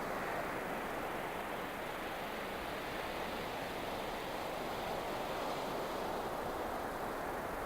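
Ocean surf washing onto a beach: a steady rushing hiss that swells slightly and eases, with no bird calls.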